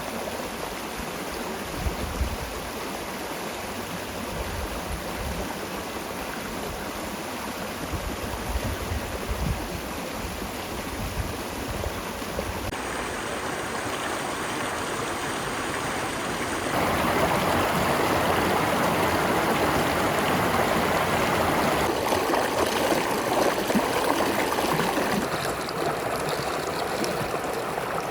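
Shallow creek water flowing steadily over rocks. It gets louder and fuller about two-thirds of the way through.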